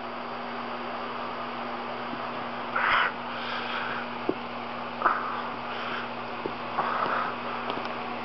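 A kitten play-fighting with a person's hand on carpet: a few short scuffling bursts and light taps over a steady low hum.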